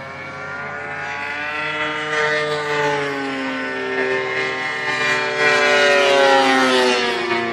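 Engines of two radio-controlled aerobatic airplanes, one a 50cc two-stroke gas engine, running hard in a climb; their pitch drifts up and down as the planes fly, and the sound grows louder toward the end.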